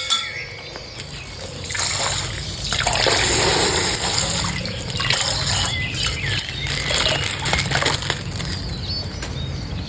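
Water splashing and trickling out of a punctured plastic ice-pack bag, with plastic crinkling and small clicks. The splashing is loudest about two to four seconds in.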